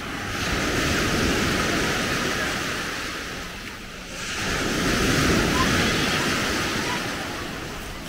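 Small waves washing up on a sandy beach, the surf swelling and fading twice, about four seconds apart.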